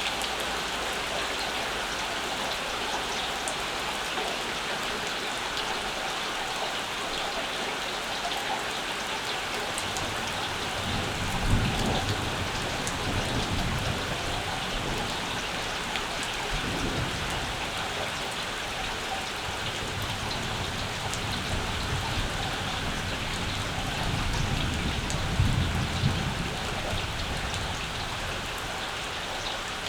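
Steady summer rain falling, with thunder rumbling low twice: once starting about a third of the way in and lasting several seconds, and again a little before the end.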